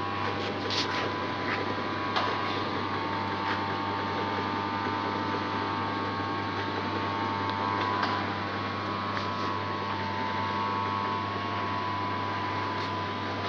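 Cashew-biscuit moulding and conveyor machinery running steadily: an even motor hum with a steady whine above it, and a few light clicks and knocks now and then.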